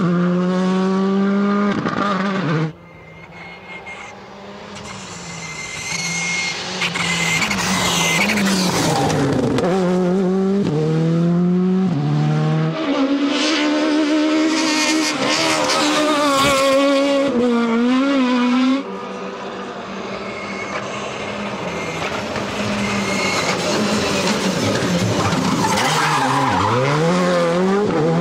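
Rally cars driving flat out, engines revving hard up and down through gear changes, with tyres squealing. The sound cuts off abruptly twice, about three seconds in and near nineteen seconds, and each time a new car's engine builds up as it approaches.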